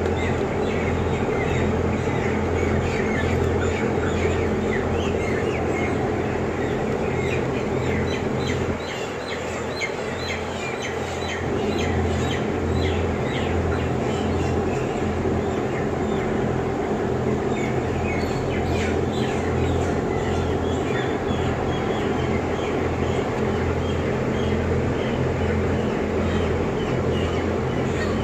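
Many chickens peeping and chirping, over the steady low hum of the barn's running blower fans and electrical panel. The hum dips briefly about nine seconds in, then returns.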